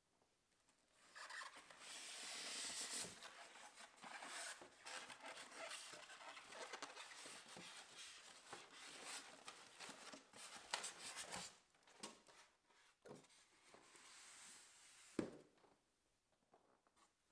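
Packing materials being handled in a cardboard box: polystyrene foam blocks rubbing against cardboard and plastic wrapping rustling, in a dense stretch of rustling that thins out to scattered handling noises, with a sharp knock near the end.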